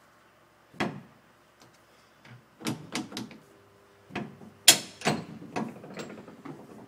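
Blackpool Standard tram 159 creeping forward along the depot track: a string of sharp clunks and knocks, the loudest a little past halfway, with a faint steady hum joining about halfway through.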